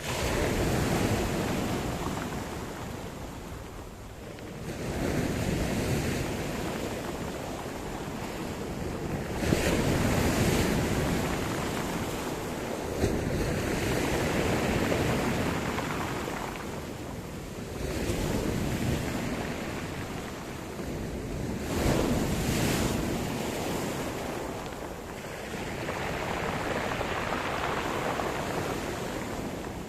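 Sea surf: waves breaking and washing up the shore in repeated swells, one surge every four seconds or so.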